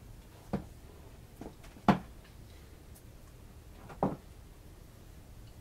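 Stiff cardboard flash cards being handled on a display board: four short knocks and taps as a card is lifted off and set aside. The loudest comes about two seconds in.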